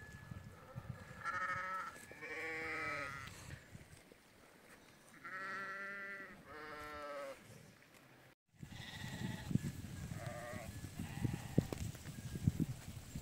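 Sheep bleating: four long calls in the first seven seconds, then, after a brief break in the sound, a few shorter, fainter bleats over a low rustling.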